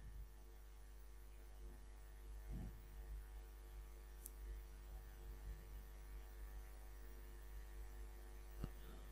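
Faint steady electrical hum in the recording chain, the background noise of the narrator's microphone, with a couple of faint soft knocks.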